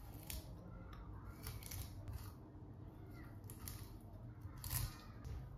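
Knife cutting into a raw salmon section on a plastic cutting board while filleting: faint, crisp slicing and scraping strokes, a few in a row, the strongest near the end.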